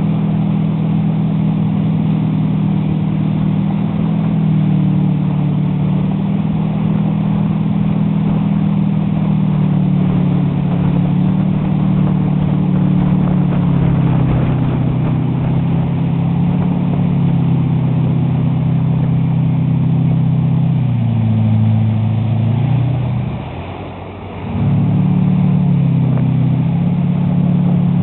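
Motorboat engine running steadily at towing speed, its pitch wandering up and down a little. A bit past twenty seconds in it drops lower and quieter for about two seconds, then picks back up.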